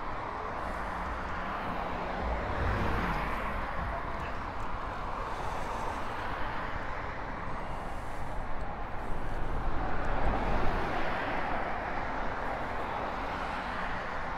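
Steady rushing road and traffic noise of a bicycle ride along a city road, picked up by a clip-on microphone. It swells twice with a low rumble, about two seconds in and more strongly around ten seconds in.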